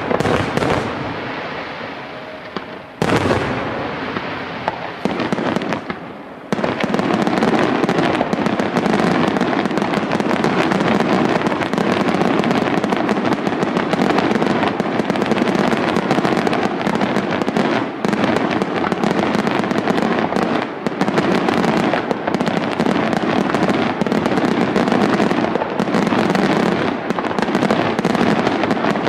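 Aerial firework shells bursting. Two separate loud bangs, each fading off, in the first few seconds, then from about six seconds in a dense, continuous barrage of overlapping bangs.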